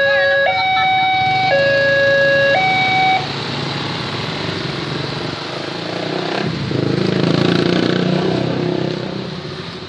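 Railway level-crossing warning signal alternating between two tones about once a second, stopping about three seconds in as the barrier arm goes up. Then motorcycle engines run as a stream of motorbikes rides over the crossing, loudest near the end.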